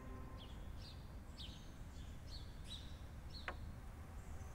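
Small birds chirping: a string of short, high chirps, with one longer call sliding steeply down in pitch about three and a half seconds in, over a faint low outdoor rumble.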